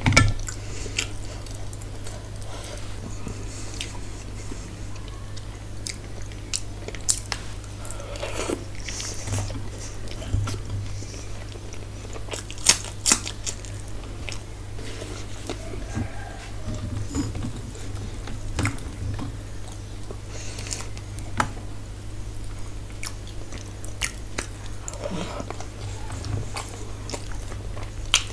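A person chewing and biting food close to the microphone, with short wet mouth clicks scattered throughout, over a steady low hum.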